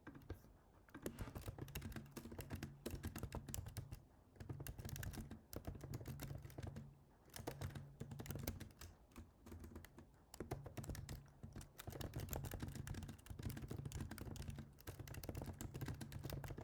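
Computer keyboard typing in quick runs of a second or two, broken by short pauses.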